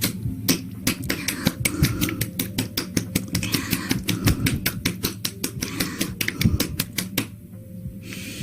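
ASMR trigger sounds: a rapid run of sharp clicks, about five or six a second, that stops about a second before the end.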